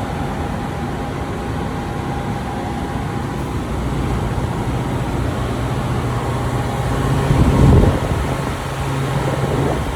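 Steady mechanical hum with rushing air noise from running machinery, with a louder low rumble swelling briefly about three-quarters of the way through.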